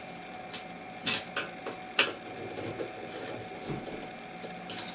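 Small sharp clicks and light rattles of a ground wire and screw being fastened to the sheet-metal housing of a T8 fluorescent light fixture, most of the clicks in the first two seconds. A faint steady hum runs underneath.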